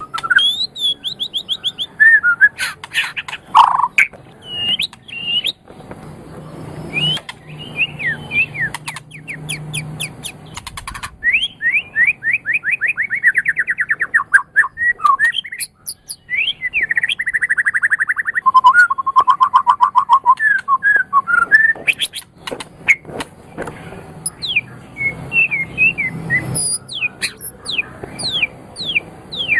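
A murai songbird singing a loud, varied song: whistled and sliding notes, fast runs of rapidly repeated notes, and sharp clicks, with only brief breaks between phrases.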